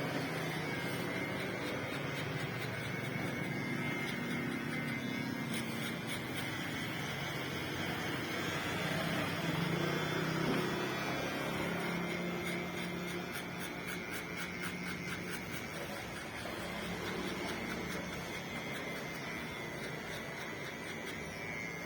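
Kemei electric hair clipper running steadily.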